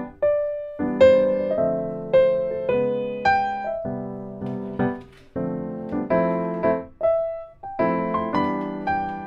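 Background piano music: a gentle melody played over chords, its notes struck and left to ring.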